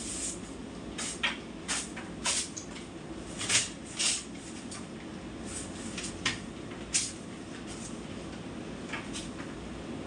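Scattered knocks, clicks and short scrapes of things being handled and moved while cleaning, most of them in the first few seconds, over a steady low hum.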